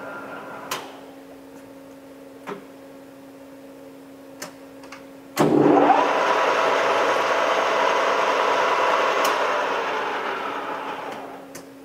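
Takisawa TSL-1000D engine lathe being shifted to a different spindle speed: a few lever clicks over a steady motor hum. About five seconds in, the spindle starts, its pitch rising quickly into a steady whir that fades away near the end as it slows.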